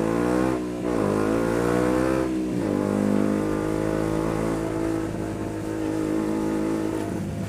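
KTM Duke 125's single-cylinder four-stroke engine pulling away. Its pitch rises and drops twice, about a second in and again near the three-second mark, as the rider shifts up. It then runs at a steady speed.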